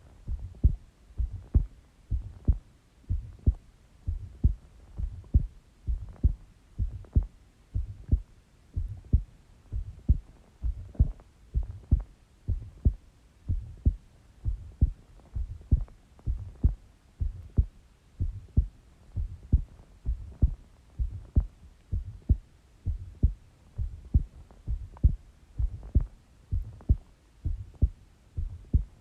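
A woman's heartbeat heard through a stethoscope: a steady, regular run of short low thumps in lub-dub pairs.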